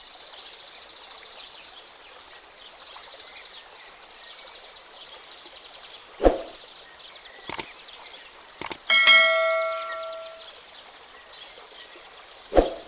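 A bright metallic ding that rings and fades over about a second and a half, about nine seconds in, with single thumps before and after it, over a faint steady chirping background.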